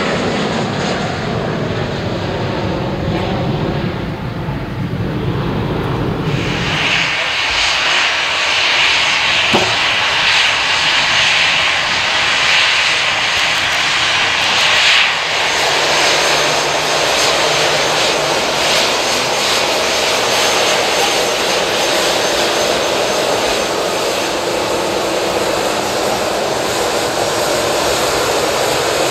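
Jet airliner engines. First a Boeing 737-800 is heard just after liftoff, with a low rumble. From about seven seconds in comes the high whine and hiss of an Airbus A321's engines as it taxis close by, settling to a steadier idle-thrust sound about halfway through.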